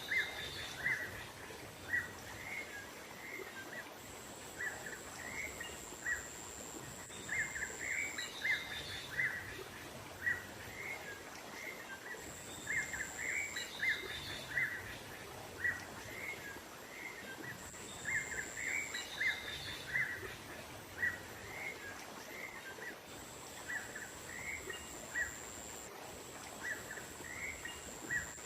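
Small songbirds chirping in short, rapid, repeated calls, a bird-lure recording meant to attract small wild birds. A thin, steady, high-pitched tone sounds behind them, stopping and starting every few seconds.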